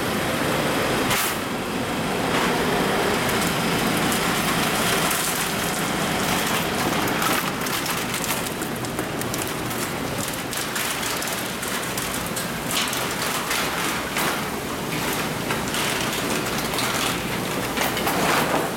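Steady rush of running, aerated water in live-fish holding tanks, with scattered knocks and splashes from plastic fish baskets being handled.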